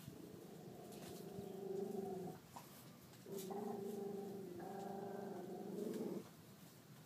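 A low-pitched voice holding two long, steady drawn-out sounds, the first about two and a half seconds long, the second about three seconds after a short break.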